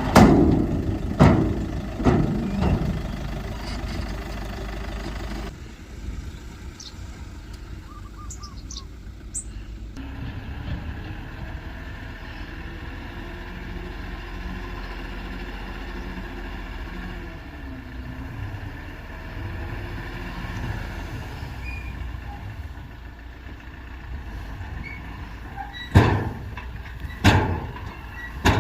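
Mitsubishi BD2G bulldozer's diesel engine running steadily, with several loud clanks in the first few seconds and three more near the end.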